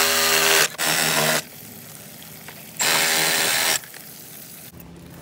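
Milwaukee M12 Fuel cordless power tool run in three bursts, cutting into a white PVC water pipe, each burst about a second long with a steady motor whine under a harsh rasp.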